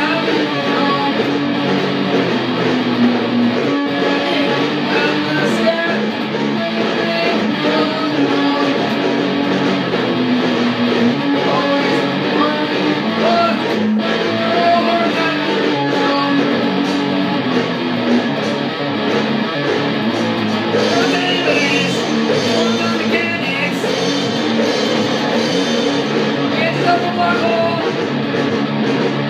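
A rock song played on guitar, running at an even level without a break.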